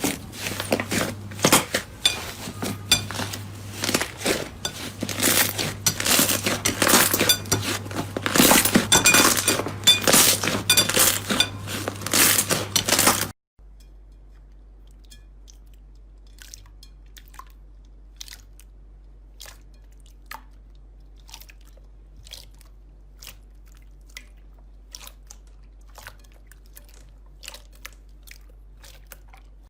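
Slime being squeezed and kneaded by hand, with loud, dense crackling and popping. About 13 seconds in it cuts to a much quieter slime clip with only sparse soft clicks over a low steady hum.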